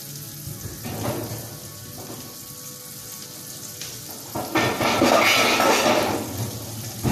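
Cooking sounds from a stovetop and sink: low clatter and movement, then about four and a half seconds in a loud rushing hiss that lasts about two seconds.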